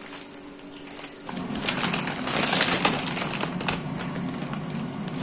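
Plastic bags crinkling and rustling as they are handled, with many small crackles and clicks. It is loudest about two to three seconds in.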